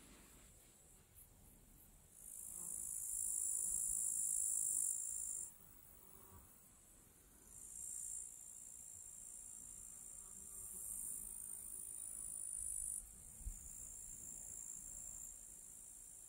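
Insects chirring in the grass, a high, steady buzz that swells and fades in spells of several seconds and is loudest a couple of seconds in.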